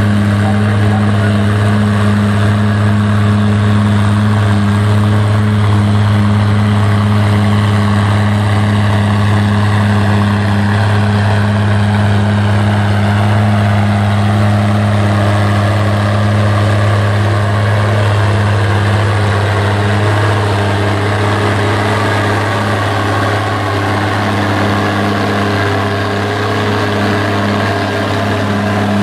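Diesel farm tractor engine running steadily at constant speed under heavy load while pulling the weight-transfer sled. Higher tones fall slowly in pitch over the run.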